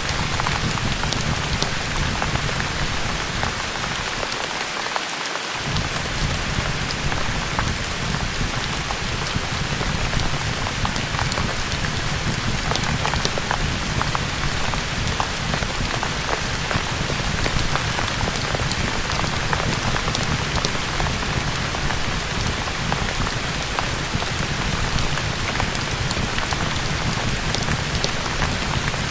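Steady rain with scattered small pops and clicks, as of a crackling wood fire, over a low rumble that drops out briefly about four to five seconds in.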